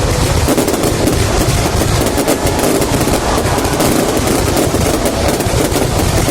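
Fireworks going off in a dense, unbroken barrage of rapid bangs and crackle.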